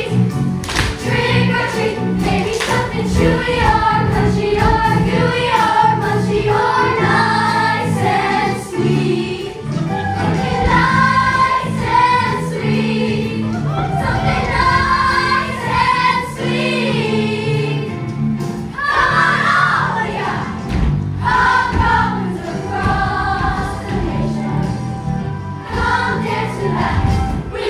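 Stage musical ensemble of young performers singing a group number in chorus over backing music.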